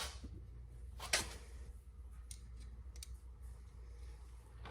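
Light clicks and small scrapes from hand work with a Phillips screwdriver as a screw is driven into a plastic door trim panel: a sharper click right at the start and another about a second in, then fainter scattered clicks, over a steady low hum.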